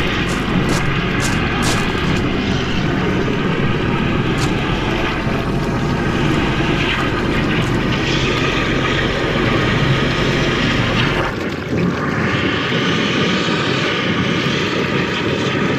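High-pressure drain jetter's engine running steadily at working revs, with a few sharp ticks in the first couple of seconds and a brief dip in the sound about eleven seconds in.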